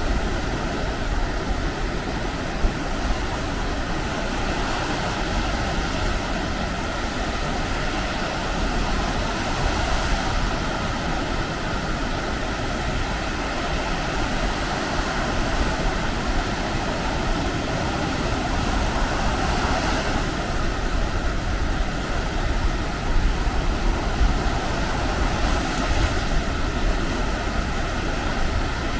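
Baltic Sea surf washing onto a sandy beach, a steady rush of waves with wind rumbling on the microphone.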